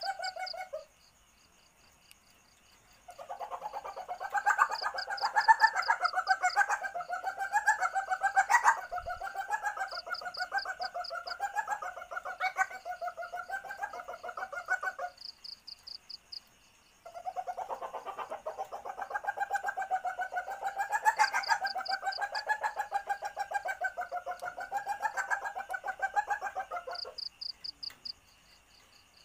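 Female common palm civet (Paradoxurus hermaphroditus) in heat giving its mating call, used as a lure for males: bouts of rapid, pulsing chattering calls. One bout ends about a second in, then come two long bouts of roughly twelve and ten seconds, with a two-second pause between them.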